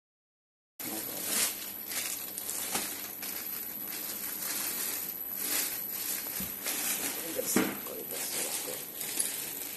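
Clear plastic packing bag crinkling and rustling as it is pulled off a network switch, starting just under a second in, with a few sharper crackles.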